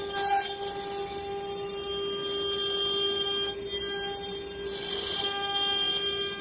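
CNC router spindle running with a steady high-pitched whine while its end mill cuts letters into a wooden sign board. Louder surges of hissing cutting noise come near the start and again about four and five seconds in.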